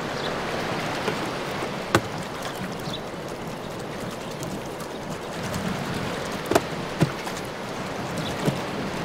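A few sharp clicks as a vinyl record is handled and set down on a turntable platter, over a steady rushing background noise.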